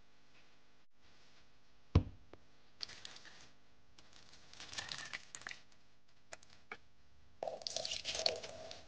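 A single sharp knock about two seconds in, then short bursts of splashing and trickling as water is poured over rose petals in a plastic tub, and near the end a stream of liquid poured into a bowl.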